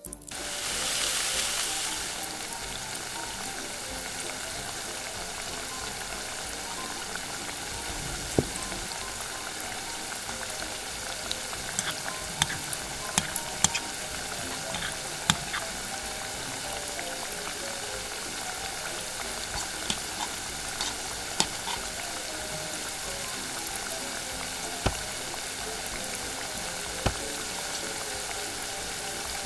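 Battered chicken pieces deep-frying in hot oil in a small iron wok: a loud sizzle as they go into the oil, settling after a couple of seconds into a steady sizzle. Sharp metal clicks come now and then as tongs and a fork turn the pieces against the pan.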